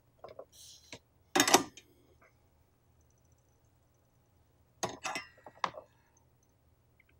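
Small metal tools clinking and clattering on a workbench during soldering, in two bursts: a loud clatter about a second and a half in, and a run of lighter clinks around five seconds in.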